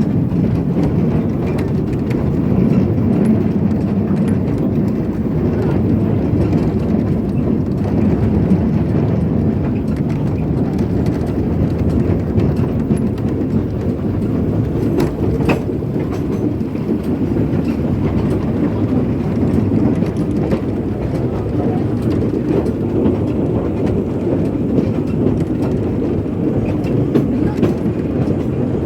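Heritage steam train carriage rolling along the track: a steady low rumble with faint scattered clicks from the wheels on the rails.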